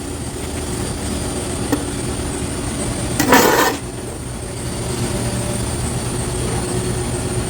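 A TIG tack weld on a sheet-metal box: one brief hissing burst of about half a second a little over three seconds in, over a steady low machine hum.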